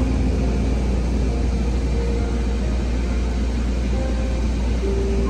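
A vehicle engine running steadily: a continuous low rumble.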